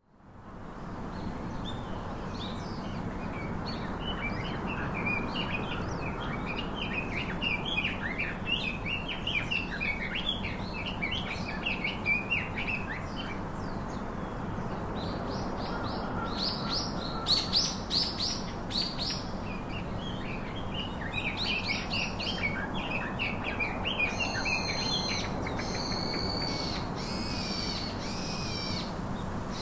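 Small birds chirping and twittering in a busy, overlapping chorus. In the last few seconds one bird repeats a clearer call, with overtones, about once a second.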